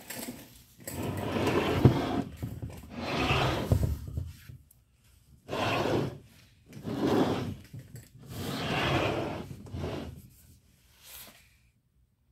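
Subwoofer's wooden cabinet scraping and rubbing on the table as it is turned around by hand, in about six strokes of a second or so each.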